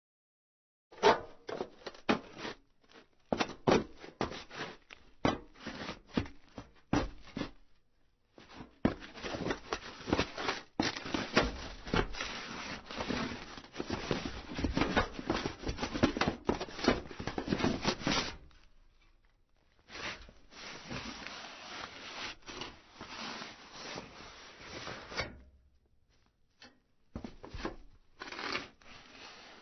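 Footsteps and body movements on a metal roof: a run of separate, uneven steps over the first seven seconds, then long stretches of scraping and sliding across the metal, and a few more steps near the end.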